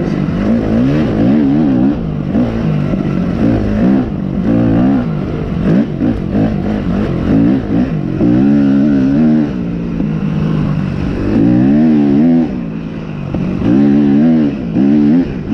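Off-road motorcycle engine being ridden hard, revving up and falling back again and again, about a dozen surges of throttle with the pitch rising and dropping each time.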